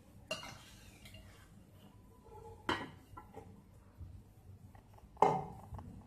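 Metal spoon knocking and scraping against a stainless steel pot while spooning cooked mutton onto a layer of rice: a few sharp clinks, the loudest about five seconds in.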